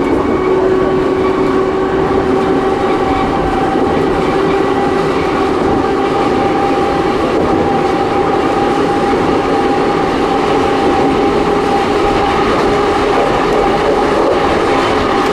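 Kotoden's 1926-built retro electric railcars running along the line at a steady pace: the rumble of the wheels on the track with a steady whine holding its pitch.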